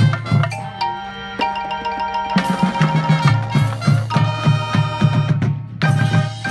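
Marching band playing: brass and saxophones over a steady drum beat.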